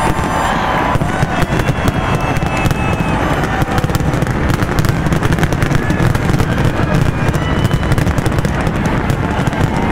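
Large aerial fireworks display going off in dense succession: many sharp crackling pops a second over a continuous low rumble of booms, loud throughout.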